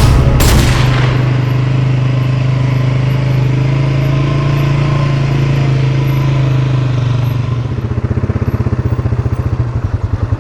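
Polaris Sportsman 570 ATV's single-cylinder engine running at a steady pitch, then settling into an idle with an even pulsing beat about eight seconds in. A brief burst of noise comes right at the start.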